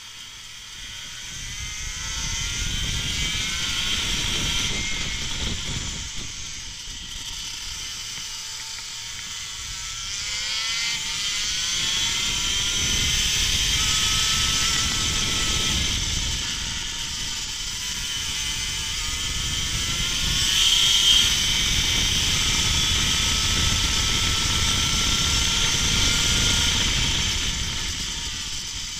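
Go-kart engine heard from on board at racing speed, revving up along the straights and dropping off into the corners several times over.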